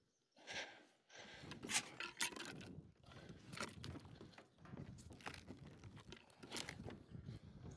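Irregular scrapes and crunches of a log being shifted by hand on the trailer bed, with a few sharper scraping strokes spread through.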